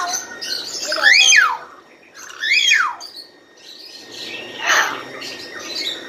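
Bird calling loudly: two calls about a second and a half apart, each sweeping up and then down in pitch, then a shorter, harsher call near the end.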